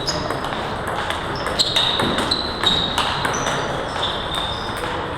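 Table tennis balls clicking off bats and the table in play, a run of short, sharp, irregular ticks, several a second, each with a brief high ring.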